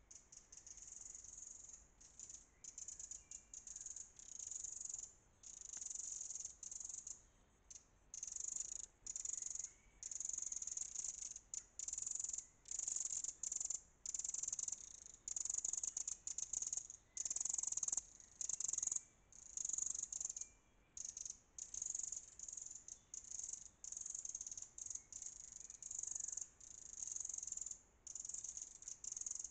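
Eurasian wren giving its alarm call: a high, dry rattle repeated in bursts of about half a second to a second, one after another with short gaps. The bird is mobbing a fox that is close to its nest.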